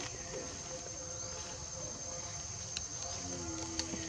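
Insects droning steadily at a high pitch, with two faint clicks and a short, faint low call near the end.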